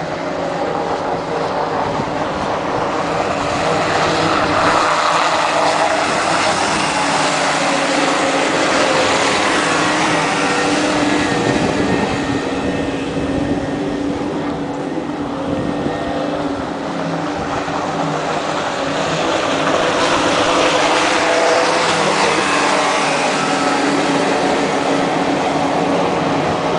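Outboard engines of Thundercat racing inflatables running flat out, a continuous high engine drone that swells twice as boats come past.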